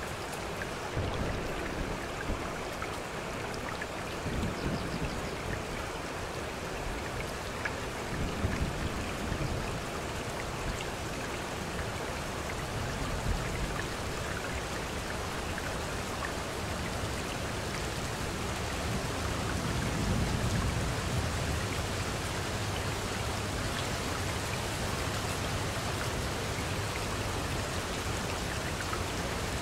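Steady rain falling, mixed with running water, with a few low swells a few seconds apart.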